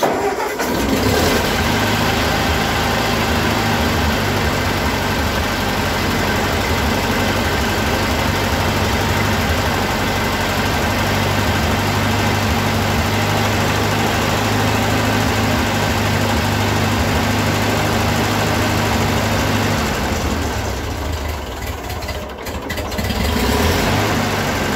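Ford 8N tractor's four-cylinder flathead petrol engine starting up and running steadily, cold, on its freshly rebuilt carburetor and readjusted governor. About twenty seconds in it slows and quietens for a couple of seconds, then picks up again.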